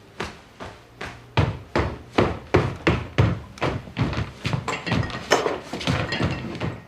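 A rapid run of wooden knocks and thuds, about two to three a second, getting busier and denser after about a second and a half.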